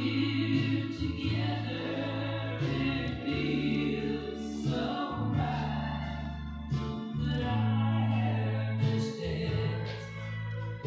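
Music with singing, over held bass notes that change every second or two.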